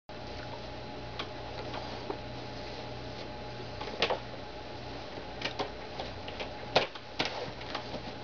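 Scattered clicks and soft knocks from hands gripping and working a leather English saddle, over a steady hum. The sharpest clicks come about four seconds in and again near seven seconds.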